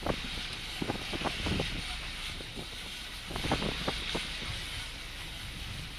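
Boat engine running steadily at trolling speed under an even hiss of wind and water, with scattered short clicks and knocks in two clusters, about a second in and again past the middle.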